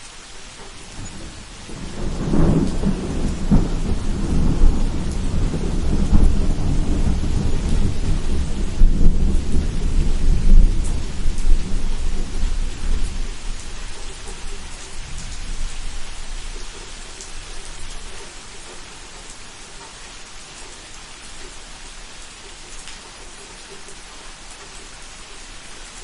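Steady rain falling, with a long roll of thunder that starts a couple of seconds in, grows into a deep rumble through the middle, and dies away, leaving only the rain.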